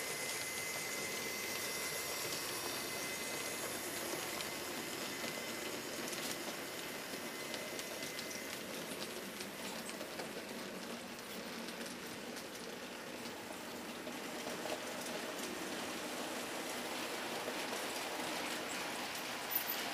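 HO-scale model trains running on their track: a steady rattling, hissing rolling noise of metal wheels on rail. A thin, steady high tone sounds for the first several seconds, and there is a small click near the end.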